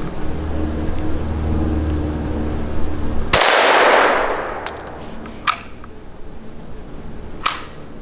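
A single rimfire rifle shot about three and a half seconds in, with a long echo fading over about a second and a half, over a steady low rumble that stops at the shot. Two short sharp clicks follow, about two and four seconds after it.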